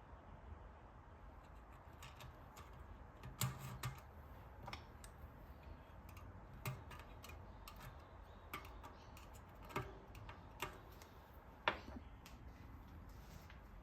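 Scattered light clicks and knocks, about a dozen at irregular intervals, the sharpest near the end, from hand work on a bicycle wheel hub and its parts.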